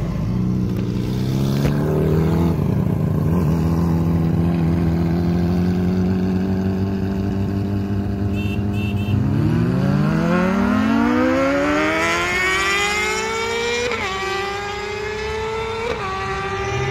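Car engines in a street race: a steady engine drone, then about nine seconds in an engine revs up hard at full throttle, its pitch climbing steadily and dropping sharply at two gear changes near the end.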